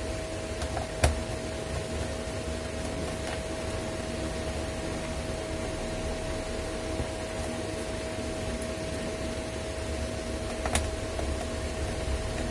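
Steady hum and hiss of an electric room fan, broken by two sharp plastic clicks, one about a second in and one near the end, as the laptop's plastic bottom case is handled along its edge.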